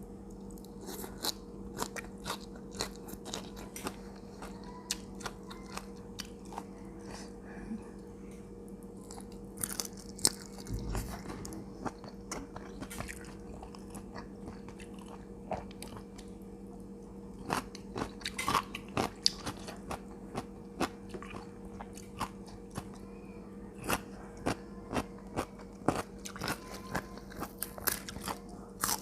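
Crisp raw vegetables being bitten and chewed with a spicy seafood salad: repeated sharp crunches, coming faster in the second half.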